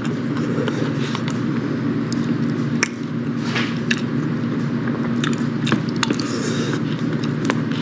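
Metal spoon stirring and clicking against a Tai Pei shrimp fried rice cup, then chewing a mouthful of rice, with a string of sharp little clicks. A steady low hum runs underneath.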